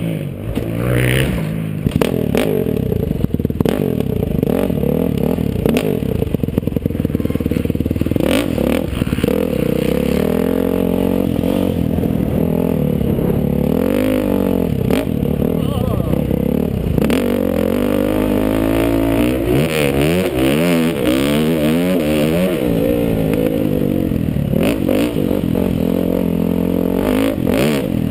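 Dirt bike engine running hard on a motocross track, its pitch repeatedly rising and falling as the rider opens and closes the throttle and shifts. Frequent short knocks and clatter run through it.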